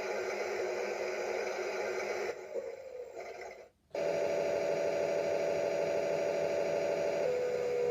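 Toy washing machine running, a steady hum with a few held tones. It fades and cuts out for a moment about three and a half seconds in, then starts again abruptly. Near the end one tone drops and slowly falls in pitch.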